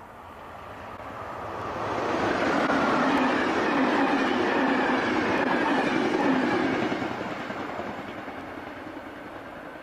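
Electric passenger train, a locomotive hauling double-deck coaches, passing close by: the rumble of wheels on rail grows over the first two seconds, stays loud for about four seconds, then fades away.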